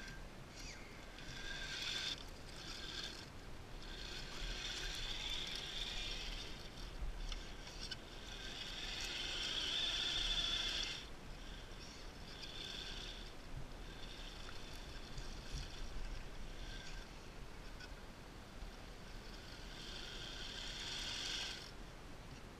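RC scale crawler's electric drive motor and gearbox whining under load on a steep rocky climb. The whine comes in spells of a few seconds as the throttle is worked, the longest and loudest about ten seconds in.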